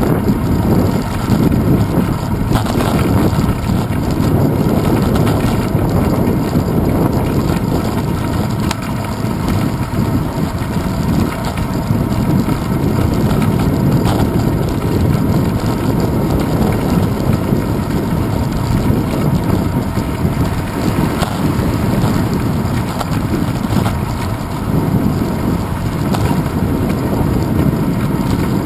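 Steady low rumble and wind buffeting picked up by a handlebar-mounted GoPro Hero 2 on a moving bicycle: wind on the microphone and the vibration of the bike rolling over paving.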